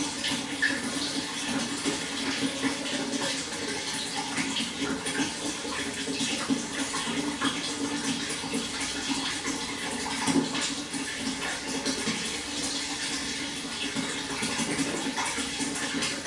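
Water flowing steadily, with a constant rush and many small splashes and gurgles.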